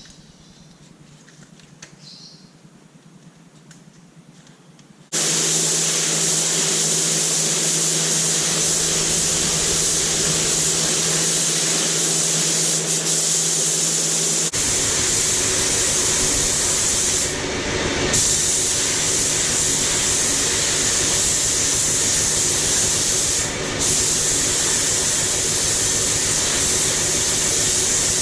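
A loud, steady spraying hiss of a pressurised air or spray jet starts suddenly about five seconds in, over a low hum, with two brief breaks in the spray.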